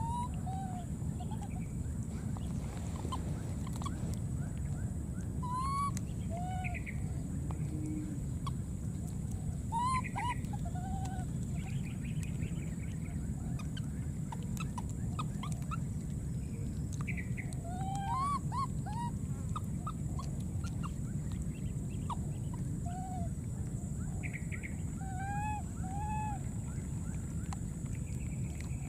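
Baby macaques giving short, arched squeaky coo calls, often two or three close together, every few seconds over a steady low rumble.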